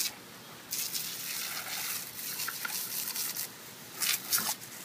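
Water spraying from a garden hose and splashing as a German Shepherd bites at the jet. The rush of spray starts about a second in, with a few short splashy bursts near the end.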